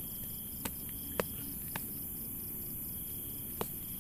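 Crickets chirping in a steady, high, rapidly pulsing chorus. A few short clicks come through it in the first two seconds, and one more near the end.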